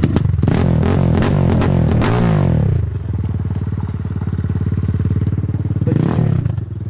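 Kayo supermoto's engine revved with throttle blips, its pitch rising and falling for the first three seconds, then dropping to a steady idle, with another short rev about six seconds in. Its loud exhaust does not yet have the dB killer that is planned for it.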